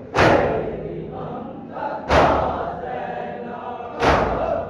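Men's voices chanting a noha, a Shia lament, in unison, with a loud collective chest-beat (matam) about every two seconds, three in all.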